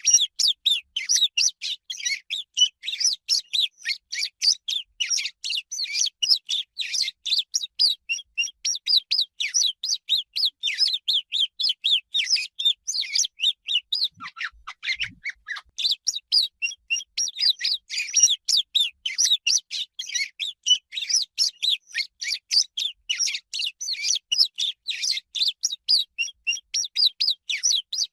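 Swallows twittering: a continuous stream of rapid, high chirps and short whistles, briefly thinning out about halfway through.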